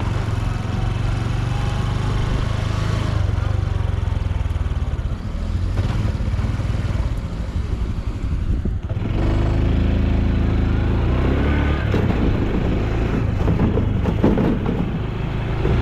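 Honda Super Cub C125's air-cooled single-cylinder four-stroke engine and exhaust running under way while riding. About nine seconds in it eases off briefly, then pulls harder and louder.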